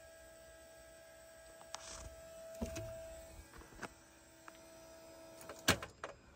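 Faint steady electrical whine with the ignition on, under scattered clicks and knocks of handling in a vehicle cab. The sharpest click comes near the end.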